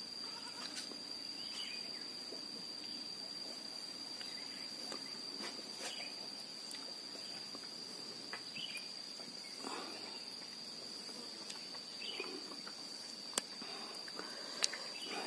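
Cricket trilling as one steady high-pitched tone, with a few faint scattered clicks.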